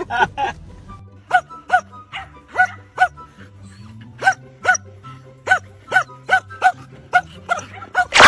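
Dog barking repeatedly in short barks, about two a second, over background music with a low bass line.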